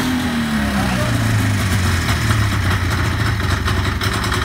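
500cc two-stroke Rotax snowmobile engine running: its revs fall away just after the start, then it holds a steady idle.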